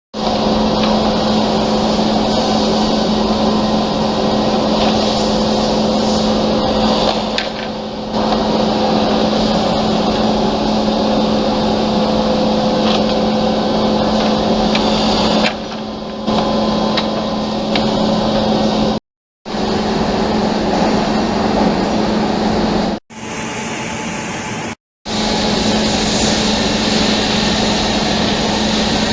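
SM-20-1J automatic double-end cutting and drilling machine running: the steady hum of its motors and spinning cutters, with a held tone. It cuts out briefly about two-thirds of the way through and is quieter for a couple of seconds soon after.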